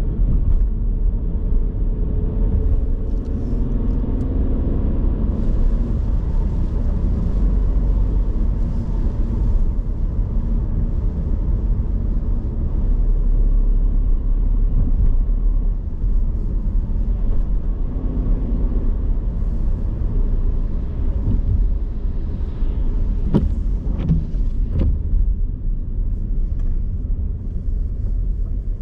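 Steady low rumble of road vehicles in city traffic, with a few short sharp clicks or knocks about three-quarters of the way through. There is no crash impact.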